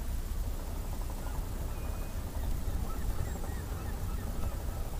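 Wind buffeting the microphone, a steady low rumble, with a few faint bird calls about halfway through.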